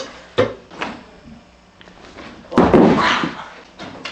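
A toilet's lid and flush handle knock sharply three times. About two and a half seconds in comes a loud rushing burst lasting about a second.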